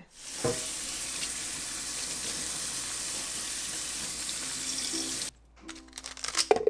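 Kitchen faucet running water over romaine lettuce leaves into a stainless steel sink, a steady hiss that cuts off abruptly about five seconds in. A few short snips of kitchen scissors cutting the lettuce follow near the end.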